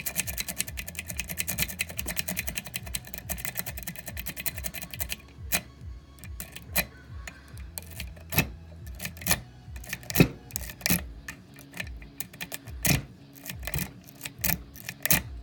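A lock-picking rake scrubbed rapidly in and out of an Abus 7240 padlock's keyway, giving fast dense clicking against the pin tumblers for about five seconds. It then slows to scattered single clicks of the pick and tension wrench working the pins, until the lock opens.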